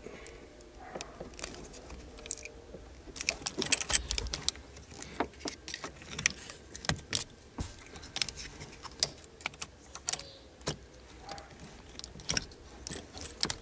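Plastic housing of a BMW E46 battery safety terminal clicking and rattling as its locking tabs are pushed in with a small screwdriver and the housing is pried apart. Many sharp clicks, busiest about three to four seconds in.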